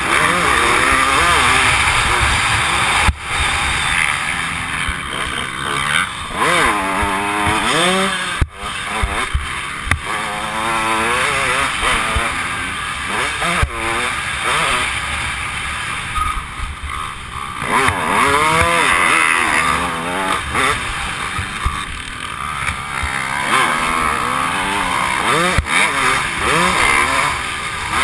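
Dirt bike engine revving hard and falling back over and over as the throttle is opened and closed, heard through a helmet camera over steady wind and track noise.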